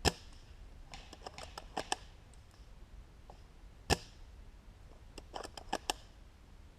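A series of sharp clicks and cracks in a small indoor space: one loud crack at the start, a quick run of clicks about a second in, another loud crack about four seconds in, and a second run of clicks just after five seconds.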